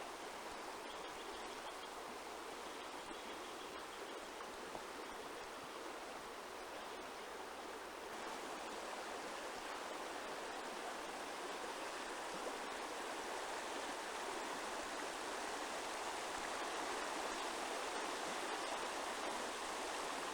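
Steady rush of running water, growing slightly louder about eight seconds in.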